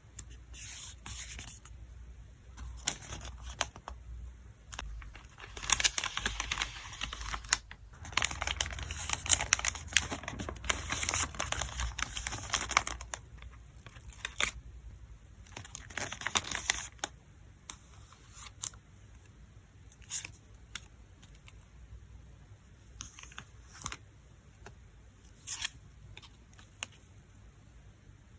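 Photocard packing by hand: packing materials crinkling and tearing in long rustling stretches, with small taps and clicks in between.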